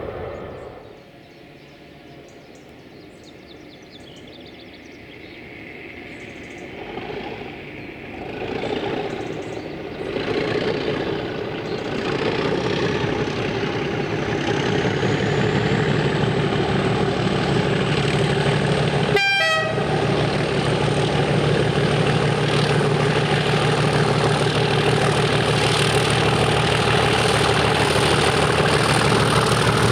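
Diesel locomotive working hard under power as it approaches, its sound building over the first half and then holding loud. A high whine rises and settles into a steady whistle over the engine. There is a brief sharp sound about two-thirds of the way through.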